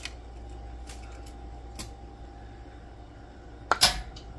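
Steady low hum with a few faint clicks, then a short clatter near the end as a small glass canning jar held in a jar lifter knocks against the rack of a water-bath canner.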